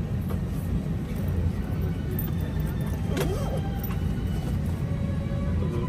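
Steady low rumble of airliner cabin noise inside an Airbus A321neo, with soft background music over it.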